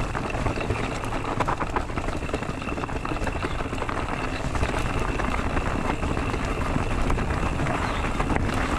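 Haibike SDURO FullNine 4.0 electric mountain bike rolling downhill over a rough forest path: a steady rumbling noise with many small knocks and rattles as the tyres go over roots and stones.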